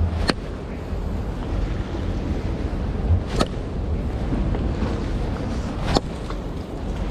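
Wind rumbling on the microphone by the sea, a steady low noise. Three sharp clicks break through: near the start, about three and a half seconds in, and about six seconds in.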